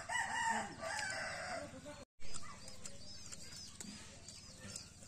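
A rooster crowing: one drawn-out crow of nearly two seconds that breaks off abruptly. Afterwards, small birds chirp faintly.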